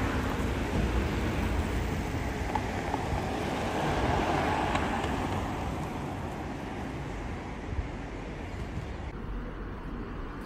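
Outdoor street traffic noise: a steady rumble that swells about four to five seconds in.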